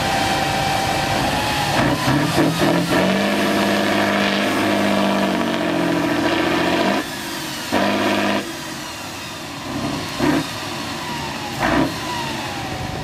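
Diesel engine of an eight-wheeled off-road trial truck revving hard under load on a steep climb, the revs rising and falling. About seven seconds in it drops back, then gives a few short bursts of throttle.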